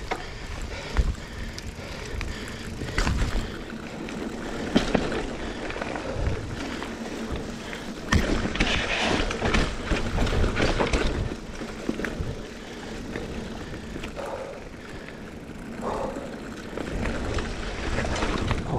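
GT Aggressor Pro hardtail mountain bike ridden over a dirt singletrack: tyre noise on the dirt with rattling and sharp knocks as the bike goes over bumps. The noise gets louder and denser for a few seconds about halfway through.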